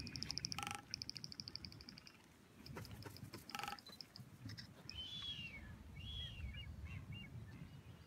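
Birds calling: a fast, high-pitched chattering trill through the first two seconds, a couple of short sharp calls, then several short arched whistling calls a few seconds in.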